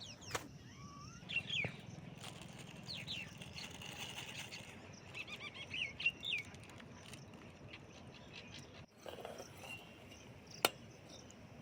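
Birds chirping in scattered short calls, several of them quick sliding chirps, over a faint outdoor background. There is one sharp click near the end.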